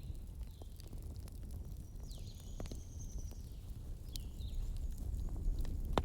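Bonfire burning with a steady low rumble and scattered sharp crackles, the loudest snap near the end. Faint high-pitched whistles and chirps come and go above it, with one longer whistle about two seconds in.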